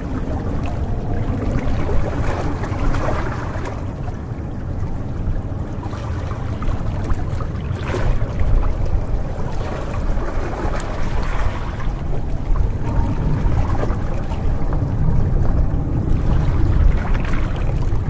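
Small sea waves lapping and splashing against shoreline rocks, swelling every few seconds, over a steady low rumble.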